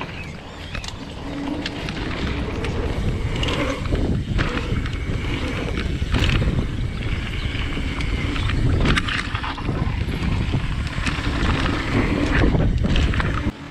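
Mountain bike ridden fast down a dirt and gravel trail: the tyres rumble on the loose surface and wind rushes over the microphone. The bike knocks and rattles sharply over bumps many times. The sound drops away suddenly near the end.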